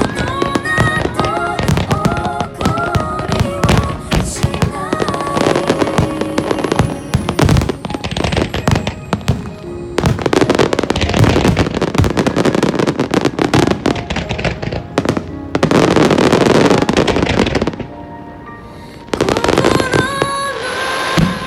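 Aerial fireworks in a dense grand-finale barrage: rapid overlapping booms and long stretches of crackling, with music playing underneath. The bursts ease off briefly about three-quarters of the way through, then pick up again near the end.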